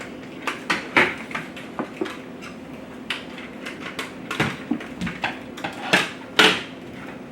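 Scattered light clicks and knocks from toys and their packaging being handled, with a few louder knocks spread through.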